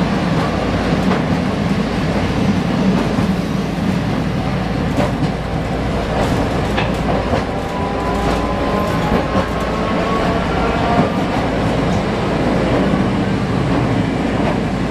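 Manyosen tram running along street track, heard from inside the car: a steady rumble of wheels on rail and running gear. A faint whine rises slightly about halfway through.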